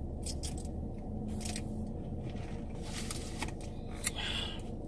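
Eating sounds: short mouth clicks and smacks while chewing a bite of tuna sandwich, over a steady low hum.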